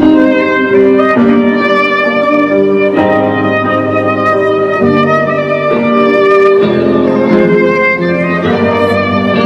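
Violin playing a melody over an accompaniment of low, held bass notes.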